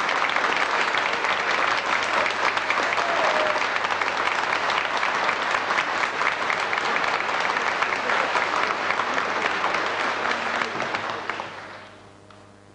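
Audience applauding, a dense patter of many hands clapping that dies away near the end, leaving a faint mains hum.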